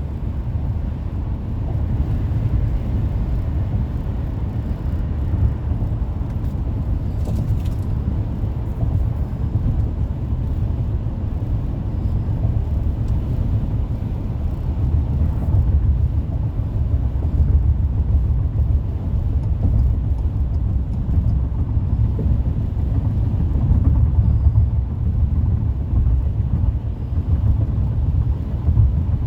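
Steady low rumble of road and tyre noise from a car cruising at freeway speed.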